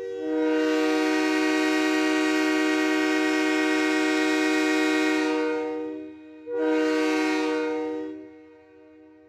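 Train air horn sounding a chord of several steady tones. It gives one long blast of about six seconds, then a shorter blast of about two seconds that fades away.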